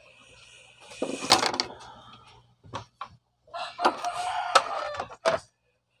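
Metal base cover plate of a coffee grinder being handled and fitted onto the housing: scattered clicks, knocks and scrapes. A long pitched bird call sounds in the background from a bit past halfway, lasting almost two seconds.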